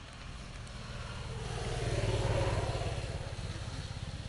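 A motor vehicle driving past: its engine sound swells to loudest about two seconds in, then fades away.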